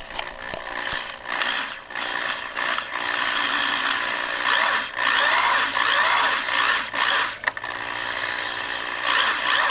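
Power drill running a left-hand (reverse) drill bit into a steel bolt broken off flush in a Cummins 8.3 L diesel's cast cylinder head: a harsh, steady scraping screech of the bit cutting metal, with short pauses about five and seven and a half seconds in.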